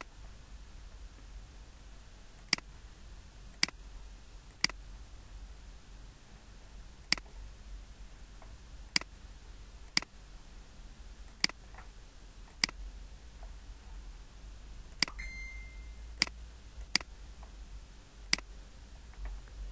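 Computer mouse clicking: about a dozen sharp single clicks at irregular intervals, over a faint steady low hum.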